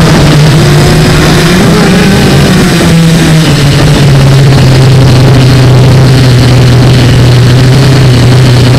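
Loud, steady buzz of a Q450 quadcopter's electric motors and propellers, picked up by the camera on the airframe. The pitch steps down about a third of the way in as the motors slow, then holds steady.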